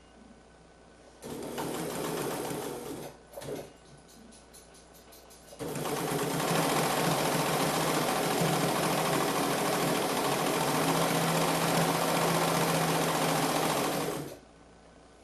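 Bernina 940 sewing machine running in bursts: a run of about two seconds, a brief burst, a few separate slow stitches, then a steady run of about eight seconds that stops short.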